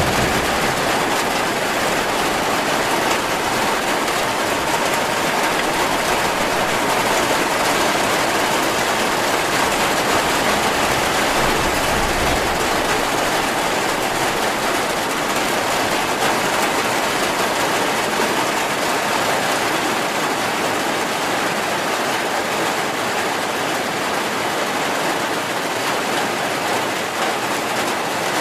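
Heavy rain falling steadily: a dense, even hiss of drops with no breaks.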